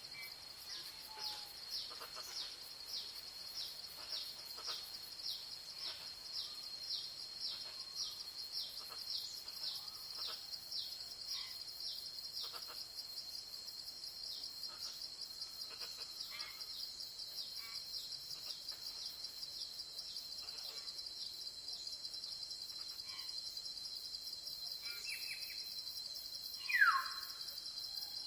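A steady, high insect chorus buzzes throughout, with faint short chirps repeating about twice a second in the first half. Near the end, a bird gives one loud call that slides downward in pitch.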